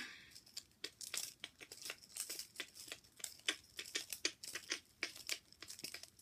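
Hands squeezing and handling slow-rising foam squishy toys: faint, irregular crinkling and rustling, several small crackles a second.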